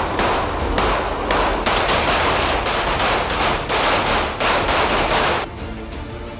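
Rapid pistol fire: many shots in quick succession, overlapping one another, stopping about five and a half seconds in.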